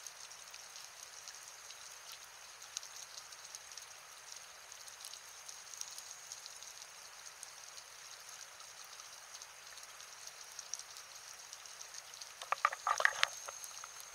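Underwater reef ambience heard through a dive camera's housing: a faint, steady crackle of scattered clicks with a steady high whine. Near the end a diver's exhaled regulator bubbles gurgle loudly for about a second.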